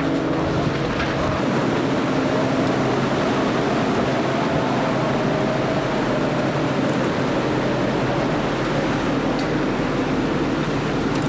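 Steady rushing noise aboard a moving ferry at sea: wind, the ship's engines and the water. A low hum fades out about a second in.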